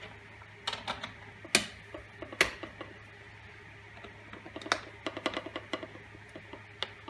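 Scattered sharp clicks and knocks of a small metal hand tool and fittings against a wooden plate, with a quick run of light clicks about five seconds in.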